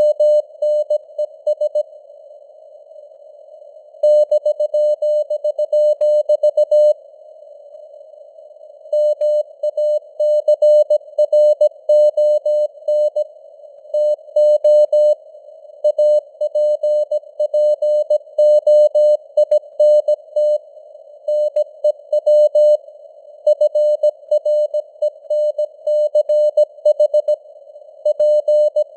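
Morse code (CW) sent at 17 words per minute: a single mid-pitched tone keyed on and off in quick dots and dashes, with a few longer pauses between words. A narrow band of simulated radio hiss sits around the tone and carries on between characters, like a CW signal heard through a receiver's narrow filter.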